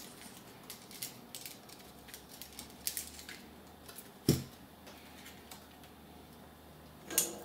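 A spool of solder wire being handled and unwound by hand: small clicks and ticks, with a knock a little over four seconds in and another near the end.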